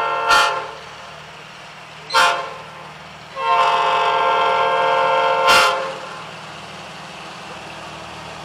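Diesel locomotive air horn blowing a grade-crossing signal: the tail of a long blast, a short toot, then a long blast of about two and a half seconds, over the steady low running of the locomotive's engine.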